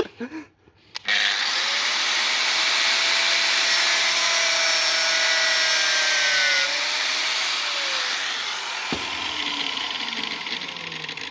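Angle grinder with a 1 mm cutting disc switched on about a second in and running as it cuts through braided rubber hose. Near the end it is switched off and spins down, its pitch falling.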